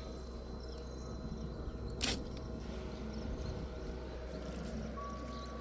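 Water pump running with a steady hum, just switched on to fill a water tank, with one sharp click about two seconds in.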